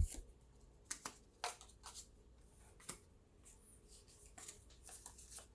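Pokémon trading cards being handled and flipped through, with soft snaps and slides of card on card spaced about a second apart and a few quicker ones near the end.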